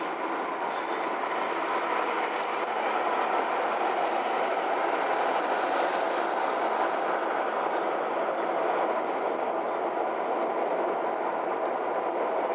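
Steady road and tyre noise inside a moving car's cabin, growing a little louder over the first few seconds.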